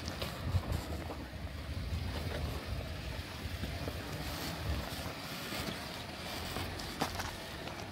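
Off-road vehicle engine running low as it crawls down a rock ledge, with wind buffeting the microphone. A couple of sharp clicks near the end.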